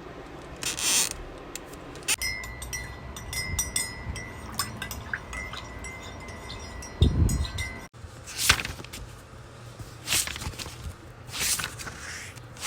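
Light tinkling chimes with a steady ringing tone for about six seconds, then a low thump. After a sudden cut come three or four soft swishes a second or two apart.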